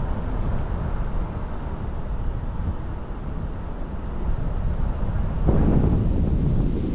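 Wind buffeting the microphone over the low rumble of a moving vehicle. A stronger gust of wind noise swells about five and a half seconds in.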